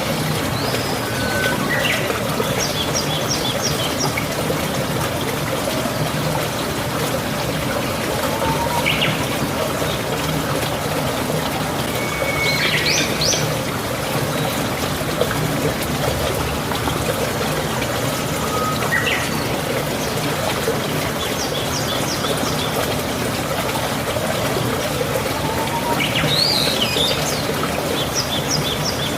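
Running water trickling steadily, with birds chirping and singing short bursts of quick high notes every few seconds.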